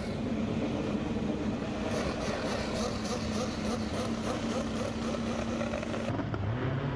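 Top fuel drag motorcycle engines idling at the starting line, a steady engine drone. Near the end the pitch climbs as an engine revs up.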